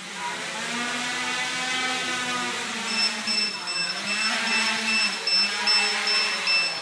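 Quadcopter's four E-max 2215 brushless motors spinning 8x4.5 propellers, a whirring whine whose pitch wavers up and down as the throttle changes. About three seconds in, a high electronic beep starts repeating about two and a half times a second.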